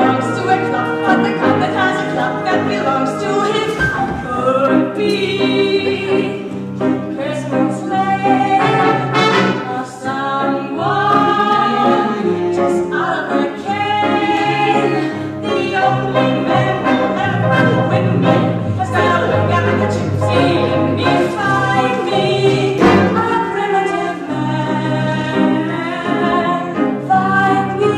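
A woman singing with wide vibrato over live band accompaniment, its brass and low instruments held steady beneath the voice.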